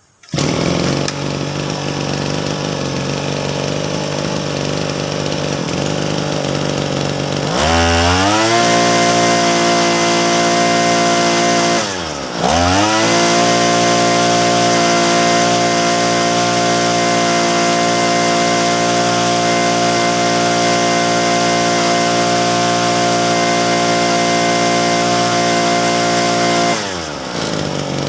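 Mitsubishi TB33 two-stroke brush-cutter engine, freshly rebuilt with a new cylinder block kit, crankshaft, oil seals and bearings, being test-run. It starts suddenly and idles, revs up to a high steady speed after several seconds, is let off briefly once and opened up again, then drops back to idle near the end.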